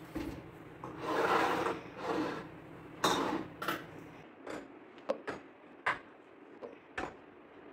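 Glass storage jars being handled at a kitchen cabinet: a rubbing, sliding noise as they are taken down, a knock, then several sharp clinks and taps as jars and their lids are set down and touched.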